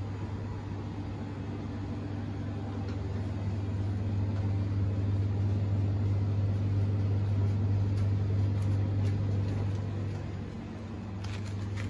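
Steady low hum of glass-door refrigerated display chillers, one droning note with fainter overtones over a soft fan hiss, a little louder through the middle, with a few faint ticks near the end.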